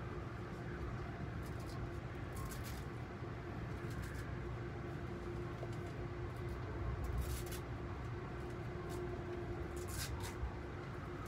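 Ride noise inside a moving Amfleet I passenger coach: a steady low rumble from the running gear with a constant faint hum, and a few sharp ticks and creaks from the car now and then.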